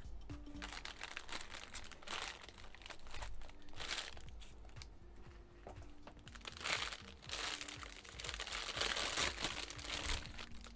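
Clear plastic wrapping crinkling and rustling in irregular bursts as an axe is lifted out of a cardboard box and unwrapped. The crinkling is loudest in a long stretch in the second half.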